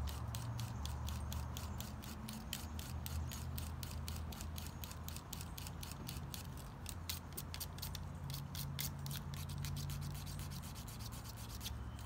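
Handheld knife sharpener scraping rapidly back and forth on a thick stainless-steel pocket-knife blade, a quick run of short rasping strokes as the edge is ground down, over a steady low rumble.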